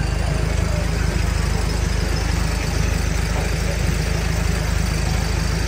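A fire truck's engine idling steadily, a low rumble with a fast, even pulse.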